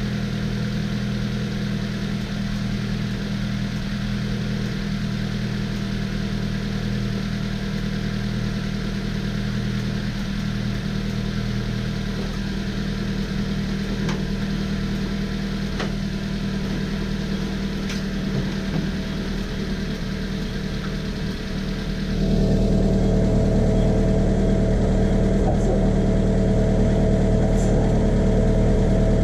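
Subaru Sambar kei truck engine running steadily at idle, heard through the open engine hatch, likely while the cooling system is bled of air after a coolant-leak repair. About two thirds of the way through, the running steps up to a louder, higher-pitched steady level.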